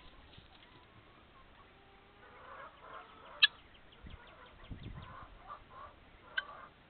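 Chickens pecking and tearing at a pile of fresh-cut grass, with soft clucks. A scatter of quick sharp pecks starts about two seconds in, and one louder click comes a little past the middle.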